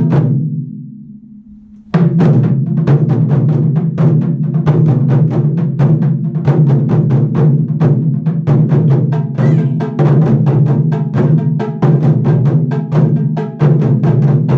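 Ensemble of taiko barrel drums struck with bachi sticks in a fast, dense rhythm. The drumming stops just after the start, leaving a low ring that dies away, then comes back in together about two seconds in.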